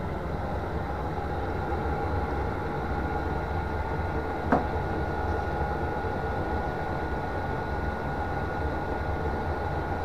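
Portable Chinese diesel air heater running steadily as it warms up to nearly full power, a low steady running noise with a thin steady whine over it. One brief click about four and a half seconds in.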